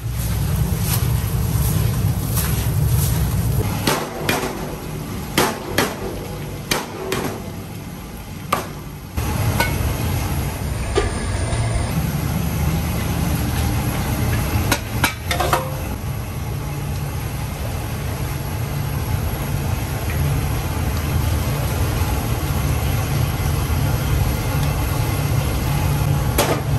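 Kitchen work sounds: stainless steel pots and a saucepan knock and clank repeatedly over a steady low hum. The clanks are frequent in the first half and sparse after about 16 s, and the hum drops out briefly around 9 s.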